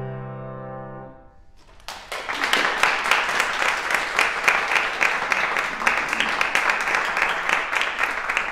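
A grand piano's final chord rings and dies away, and about two seconds in an audience breaks into steady applause.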